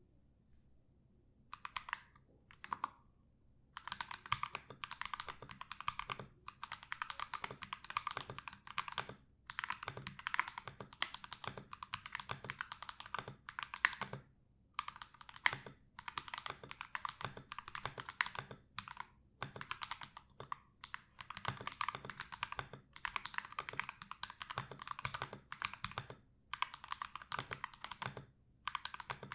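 Typing on a Keychron K2 V2 hot-swap aluminium-frame mechanical keyboard with Akko CS Lavender Purple tactile switches lubed with 205g0 and PBT cherry-profile keycaps. There are fast runs of keystrokes broken by short pauses, beginning about a second and a half in.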